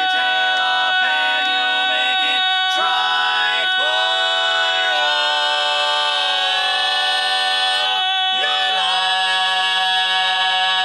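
Male barbershop quartet singing a cappella in close four-part harmony, moving through a few short chords and then holding long sustained chords to close the song.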